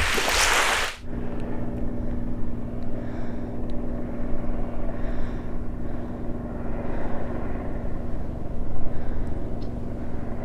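Small waves washing onto a coral-rubble beach, cut off sharply about a second in. A steady low motor-like hum with a few fixed tones follows.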